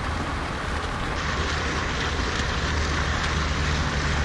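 Fountain jet splashing steadily into a pond, with low wind rumble on an action camera's microphone. About a second in, the highest treble cuts off as the sound switches to a second camera's recording of the same splashing.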